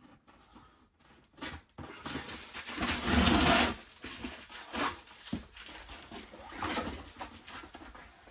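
A cardboard box being opened and its contents rummaged through: a couple of knocks, then rustling and scraping, loudest about three seconds in, with shorter bursts of rustling after.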